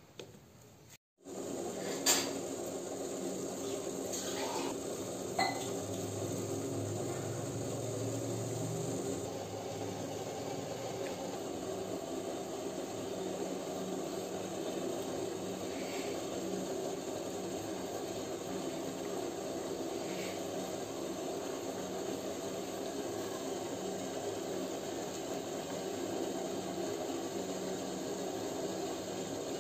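Gulab jamun dough balls frying in hot oil in a pan: a steady low sizzle, with a sharp clink against the pan about two seconds in and two lighter ones a few seconds later.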